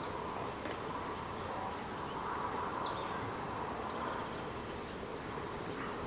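Insect buzzing, a faint wavering hum, with a few short high chirps now and then.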